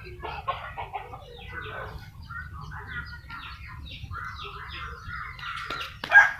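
Chickens clucking and chirping in a run of short calls, with a rooster starting to crow right at the end.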